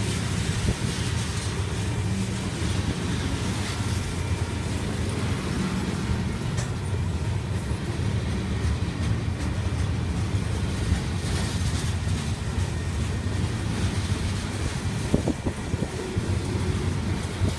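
Freight cars rolling past on steel wheels: a steady low rumble of wheels on rail with a few brief clacks.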